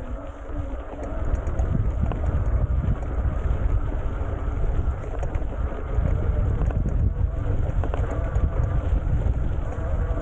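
Wind buffeting the bike-mounted microphone while an electric bike's knobbly tyres roll over a stubble field: a steady low rumble that grows louder about a second in.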